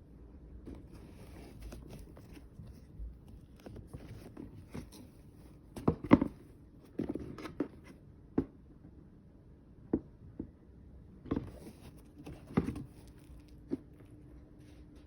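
Sneakers and their shoebox being handled: scattered light knocks and taps with soft rustling, the loudest knocks about six seconds in.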